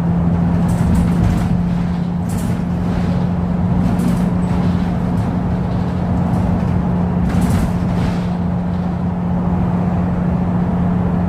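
Mercedes-Benz Citaro G II articulated bus engine running steadily at a cruise of about 65 km/h: an even drone under heavy road and tyre noise, with a few brief hissing rattles.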